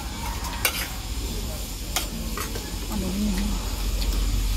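Spoons clinking and scraping against metal bowls and plates as people eat, with a few sharp clinks, the clearest about two seconds in.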